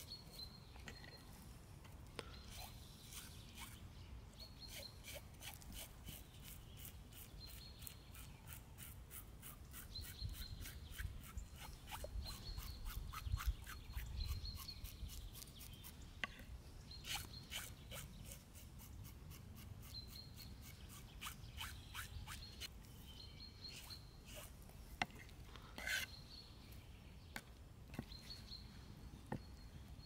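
A small bird chirps again and again over a run of quick, even strokes, about four a second, lasting about a dozen seconds, then a few scattered knocks, all over a low rumble.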